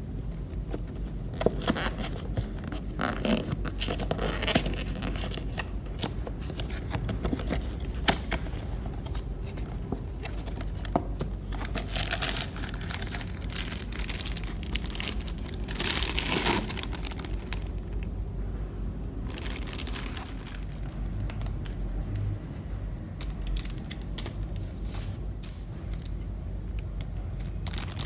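Unboxing handling noise: a cardboard figure box opened with sharp clicks and scrapes in the first few seconds, then a clear plastic bag crinkling in bursts and being cut with scissors near the end. A steady low hum runs underneath.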